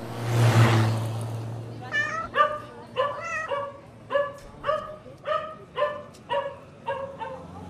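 A vehicle rushes past in the first second. From about two seconds in, a dog barks repeatedly: about a dozen short barks, roughly two a second.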